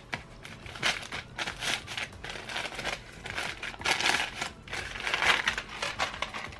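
Stiff white packing paper crinkling and rustling as it is pulled out of a boot's shaft, in an irregular run of crackly bursts that grows louder about four and five seconds in.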